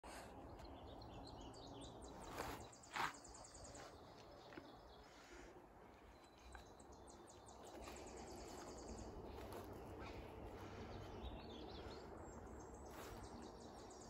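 Faint songbirds singing in a conifer forest, with repeated rapid high trills, over footsteps on a dirt trail and a low rumble. Two louder knocks come about two and a half and three seconds in.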